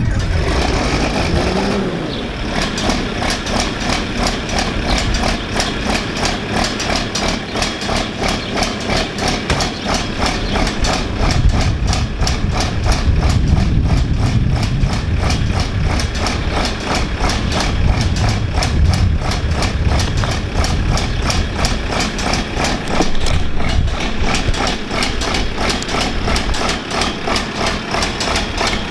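John Deere 4430's six-cylinder turbo diesel just started. Its pitch rises and falls over the first couple of seconds, then it settles into a steady idle with a rapid, even diesel knock, running freshly started to warm up.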